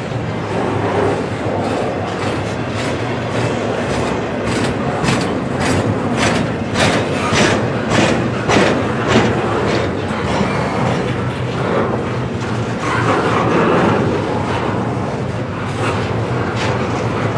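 Double-stack intermodal freight train rolling slowly past: a steady rumble of the well cars with a run of steel wheels clicking over rail joints, about two clicks a second, through the middle.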